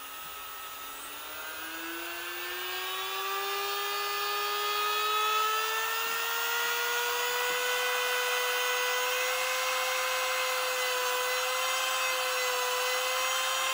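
Worx WX739 MakerX brushless rotary tool running free, its motor whine climbing in pitch and getting louder over the first several seconds as the speed dial is turned up, then holding steady at high speed.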